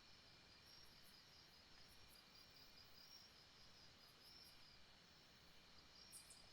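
Faint night-time jungle ambience: insects trilling steadily in a high, pulsing band, with brief higher chirps every second or so, the clearest near the end.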